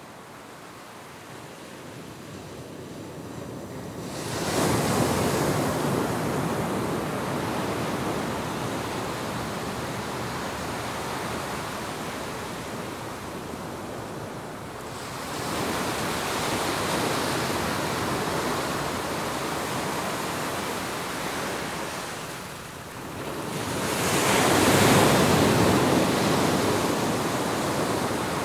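Ocean surf: waves breaking and washing up a sandy beach. The rush swells three times, the last one the loudest.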